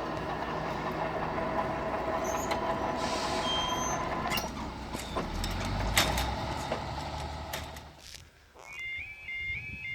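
A heavy diesel vehicle running close by, with a hiss about three seconds in. Near the end the level crossing's electronic alarm starts: a rapid, repeating high two-tone warble.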